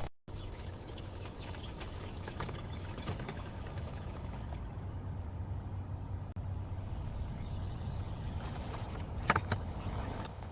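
Construction-site ambience: a steady low rumble like machinery running, with scattered light taps and two or three sharp knocks about nine seconds in.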